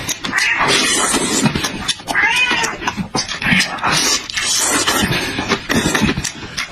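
A domestic cat yowling over and over in loud, drawn-out meows, worked up at fish being eaten in front of it.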